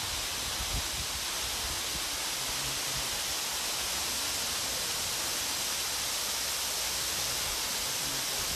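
Waterfall, a steady rushing hiss of falling water.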